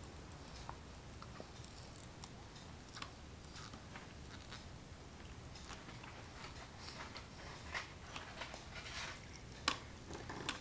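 A baby gnawing and sucking on a watermelon rind: faint, short mouth clicks and smacks that come more often in the second half, with one sharper click near the end.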